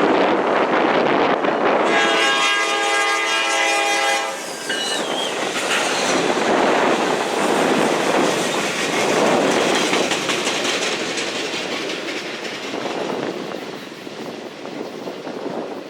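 Norfolk Southern freight train with GE diesel locomotives passing: the locomotive horn sounds one chord about two seconds in, held for about two seconds, amid the steady rumble and wheel clatter of the train, which slowly fades toward the end.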